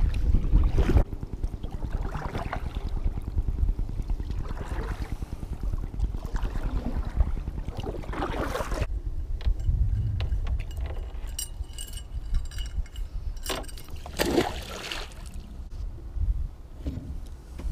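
Kayak paddle strokes dipping and splashing in lake water about every two seconds, with wind buffeting the microphone at the start. After about nine seconds the paddling stops and a run of light clicks and a couple of knocks follow.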